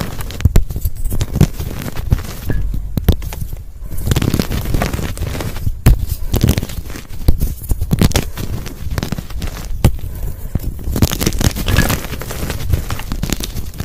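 Dyed gym chalk crushed by hand: dense crunchy, crispy crackling with many sharp snaps as chunks break and crumbs are squeezed in the palms, in repeated bouts with brief lulls between squeezes.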